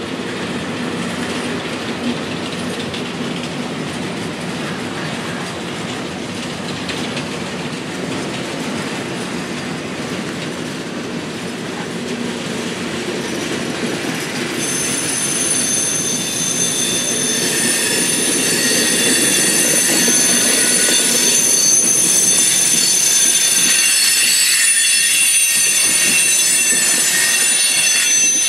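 Freight train cars rolling past on steel rails with a steady rumble: TTX well cars, then refrigerated boxcars. About halfway through, a high-pitched wheel squeal of several steady tones sets in and grows louder.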